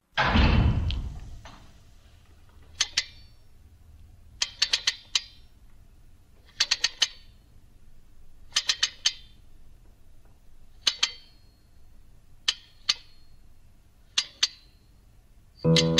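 Night-time chirping, most likely insects: short rasping calls in groups of two to four, repeating about every two seconds over a faint low hum. A loud rock track cuts off at the start and rings out over about a second, and guitar music comes in just before the end.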